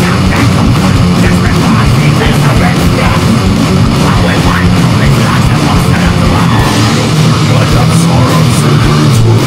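Loud, dense heavy rock music playing without a break, with a strong low end.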